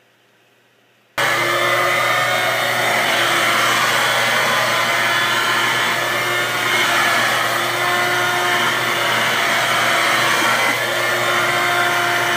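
Handheld vacuum cleaner running steadily as its nozzle is worked over a cat's fur, a loud even motor noise with a few steady tones in it. It starts abruptly about a second in, after faint room tone.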